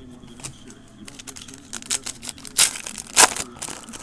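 Trading cards being handled and shuffled, a run of light rustling and crinkling clicks with two sharper, louder snaps a little past halfway.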